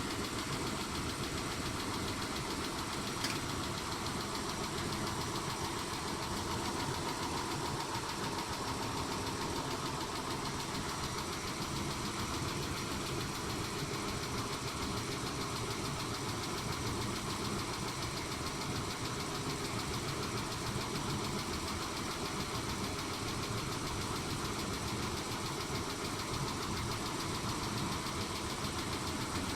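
Mitsubishi 6G72 V6 idling with a fast, even ticking from the valvetrain, which the owner suspects comes from hydraulic lash adjusters tapping (or a tired engine). A single sharp click about three seconds in.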